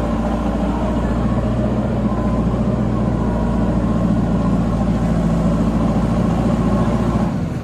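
JCB backhoe loader's diesel engine running steadily close by, a constant engine drone that drops away suddenly near the end.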